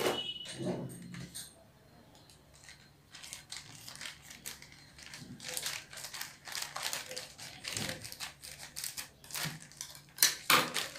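Plastic courier mailer bag crinkling and rustling as it is handled and cut open with scissors, in irregular crackles, quieter for a moment about two seconds in. A sharper, louder crackle comes near the end.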